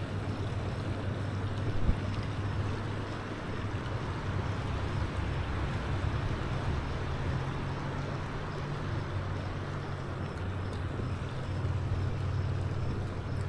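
Steady rush of flowing river water, with a constant low rumble underneath and a single small knock about two seconds in.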